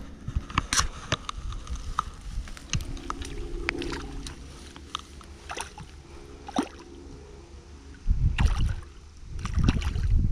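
A landing net being lowered into river water to let a small pike swim out: water sloshing and dripping, with scattered small splashes and clicks. Near the end come two louder, low rushing bursts.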